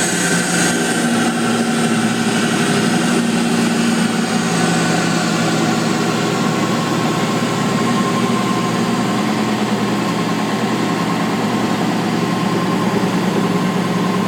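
Jet 15-inch variable-speed belt-drive drill press running steadily at its top speed, about 5,300 RPM: an even motor-and-belt hum with several steady tones.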